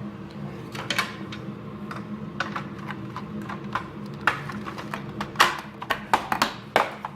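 Hard plastic parts of a Hoover UH70120 vacuum cleaner's switch housing clicking and clacking as they are handled and fitted back together: scattered sharp clicks, the loudest about five seconds in, then several in quick succession near the end.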